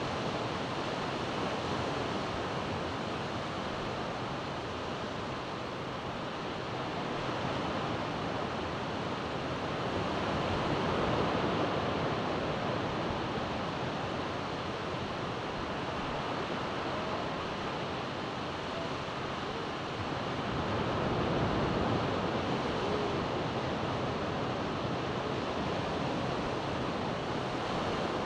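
Ocean surf breaking and washing up a sandy beach, a steady rushing wash that swells louder twice, about ten seconds apart.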